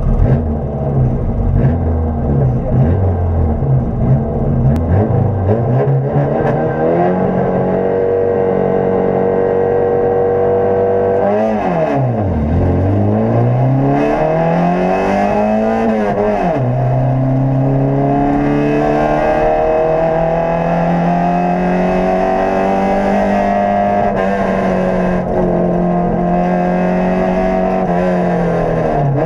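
Peugeot 106 F2000/12 rally car's four-cylinder engine, heard from inside the cabin, driven hard. Over the first few seconds the revs rise and fall rapidly and unevenly. Then the engine climbs steadily in pitch, with the revs falling sharply and climbing again twice near the middle. Later it holds high revs fairly steadily.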